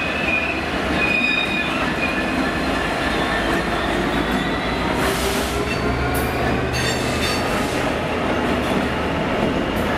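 A DB Cargo Class 66 diesel locomotive, whose engine is a two-stroke V12, running past at the head of a freight train, followed by its bogie hopper wagons rolling by. Wheels squeal thinly and high over a steady rumble and clatter of wheels on rail.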